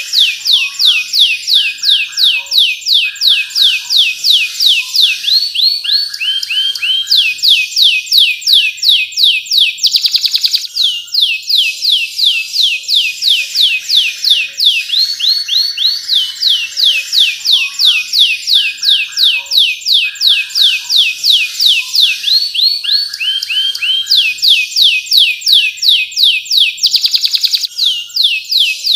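Domestic canary singing a long, unbroken song: trains of rapid down-slurred notes, about five or six a second, alternating with lower trills. A fast buzzy roll comes about ten seconds in and again near the end.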